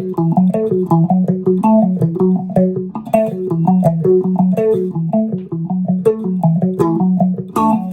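Electric guitar playing a quick picked breakdown riff of single notes around the 12th and 14th frets of the low E and A strings, several notes a second in an even rhythm.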